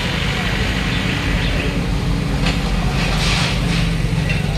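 Diesel engines of backhoe loaders running steadily during demolition of roadside buildings. There is a sharp crack about two and a half seconds in, and clattering, crashing rubble a second later.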